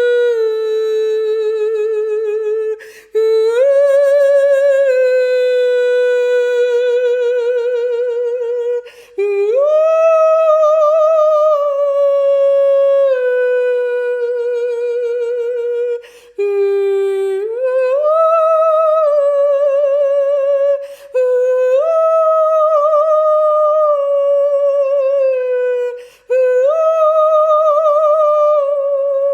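A single high voice singing wordless, long held notes with a wavering vibrato. It breaks off briefly for a breath about every five to seven seconds, and each new phrase slides up into its note and then eases back down.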